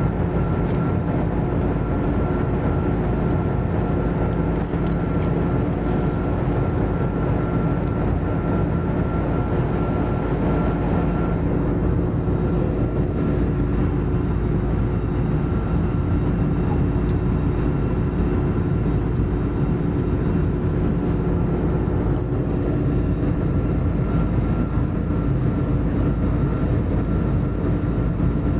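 Steady jet engine and airflow noise inside an airliner cabin in cruise: a constant rumble and rush with a few steady hums, the hiss easing slightly about twelve seconds in.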